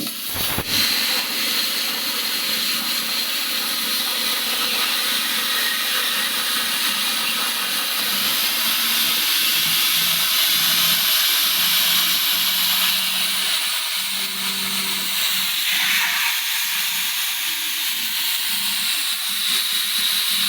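Plasma cutter arc hissing steadily while cutting iron on a homemade CNC plasma table, starting with a sharp click. A faint low hum that shifts in pitch every second or so runs underneath.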